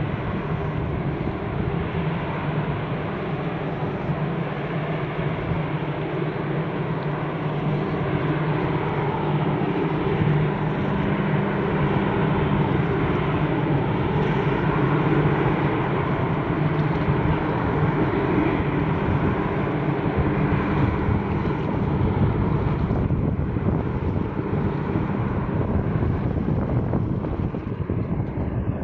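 Steady drone of a marine engine close by, a low hum over a wash of wind and water noise; the low hum thins out after about twenty seconds.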